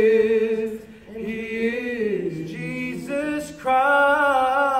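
Unaccompanied vocal trio of two women and a man singing a gospel song in close harmony. The voices sustain notes and slide down in pitch, then hold a long chord from about three and a half seconds in.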